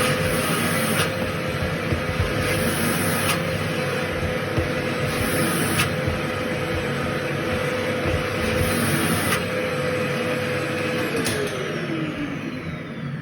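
Vacuum cleaner running steadily, sucking coffee grounds out of a grinder, its hiss changing in level now and then; the motor winds down about eleven seconds in.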